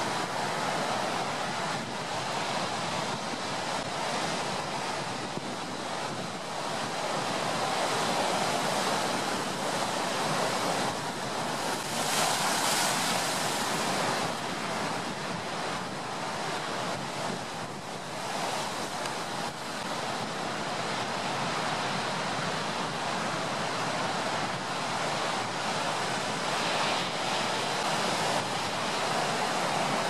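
Storm surf breaking on the shore: a steady rush of crashing waves with wind, swelling loudest a little before halfway through.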